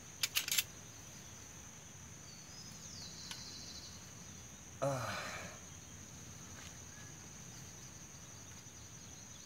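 Insects buzzing with a steady high tone in the background. A few light clicks come about half a second in, and a short falling voice sound from the man about five seconds in.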